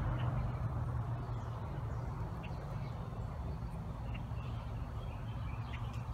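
Steady low outdoor background hum, with faint short chirps now and then.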